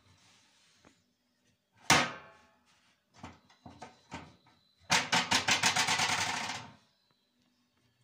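Metal drum flaps of a Whirlpool top-loading washing machine being handled: a sharp metallic clack that rings briefly about two seconds in, a few lighter knocks, then a rapid run of clicks, about seven a second, for nearly two seconds.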